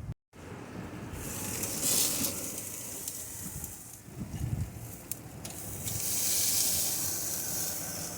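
Meat sizzling on a propane barbecue grill, a steady hiss that swells louder about two seconds in and again near the end.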